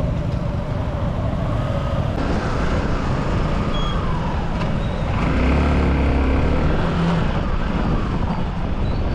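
Small motorcycle engine running while riding through town traffic, its pitch rising and falling with the throttle, over wind and road noise. A deeper, louder rumble swells between about five and seven seconds in.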